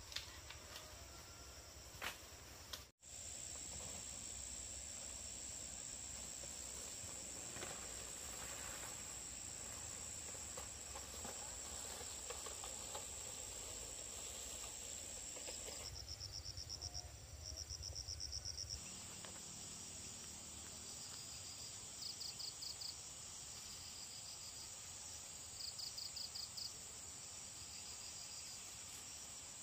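Insects calling in the vegetation: a steady high-pitched trill, joined in the second half by short bursts of rapid chirping that recur every few seconds.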